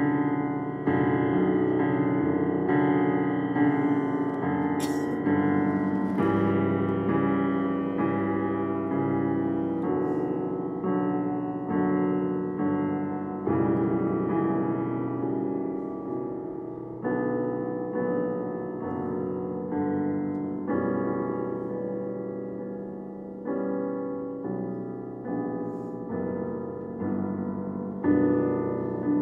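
Digital piano playing a slow, live silent-film accompaniment: chords struck about once a second, each left to fade.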